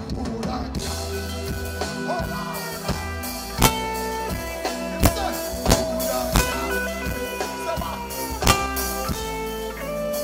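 Live band music on stage: held chords ring out, punctuated by a handful of sharp drum hits.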